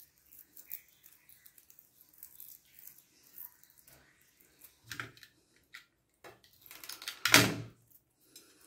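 Small clicks and rustles of a coaxial cable end being stripped and handled, with a sharper click about five seconds in and a louder, noisy scraping rasp of under a second near the end.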